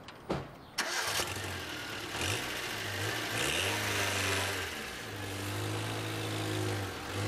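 A small car's engine starting about a second in, then running with its pitch rising and falling as the car pulls away. Two sharp knocks just before, like a car door shutting.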